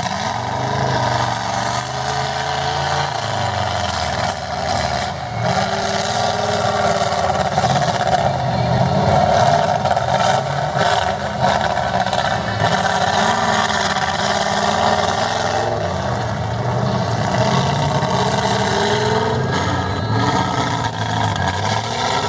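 Mud truck's engine revving hard, its pitch rising and falling again and again over a steady loud rush.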